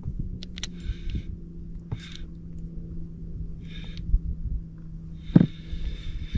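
Spinning fishing reel being cranked in short spells, each turn giving a brief whirring hiss, with small clicks between them over a steady low hum. A single knock about five seconds in.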